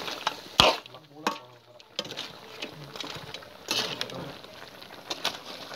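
Metal ladle stirring and scraping a thick meat stew in a large steel wok, with the stew sizzling as it cooks; a couple of sharp knocks of the ladle against the pan come about half a second and a second and a quarter in.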